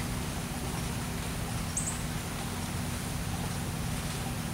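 Steady low hum under an even background hiss, with one brief high chirp about two seconds in.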